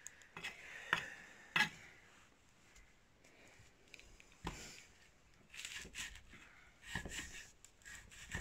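Kitchen knife cutting raw meat on a wooden chopping block, with a few sharp knocks of the blade striking the wood and quiet slicing and scraping between them.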